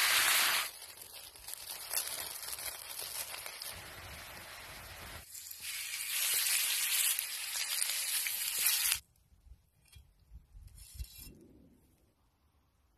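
Food sizzling in hot pans over a campfire. A loud hissing sizzle drops off just under a second in, and a lower sizzle follows. From about five seconds a louder sizzle sounds as potato halves sear on a grill pan, and it cuts off sharply at about nine seconds. A few faint soft sounds follow near the end.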